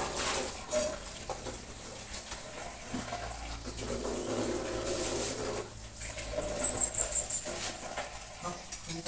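Water poured from a bucket splashing onto a wet concrete floor. About two-thirds of the way through comes a quick run of about eight short, high squeaks.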